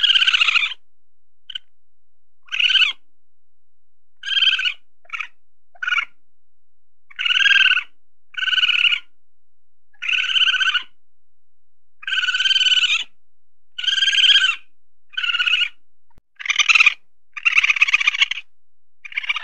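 Weasel calling: a series of short, buzzy, high-pitched calls, some brief and some lasting about a second, repeated roughly once a second.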